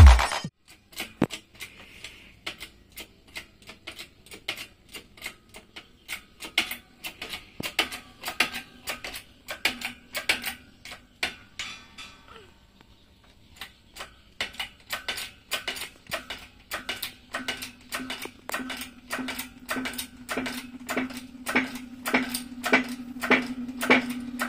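Hammer tapping repeatedly on metal parts held in a bench press, sharp light strikes at about two a second, then about three a second after a short pause halfway through. A faint steady low hum rises under the strikes in the second half.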